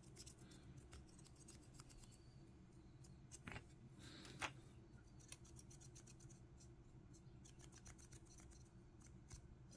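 Near silence: faint steady room hum with scattered small clicks and two slightly louder taps around the middle, as a plastic miniature base is turned in the fingers and brushed.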